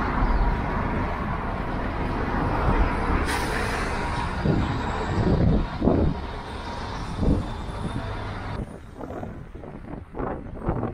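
Motor vehicle running, with steady engine and road noise; the sound drops abruptly about eight and a half seconds in.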